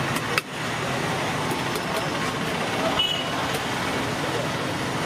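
Steady roadside traffic noise, with one sharp click about half a second in.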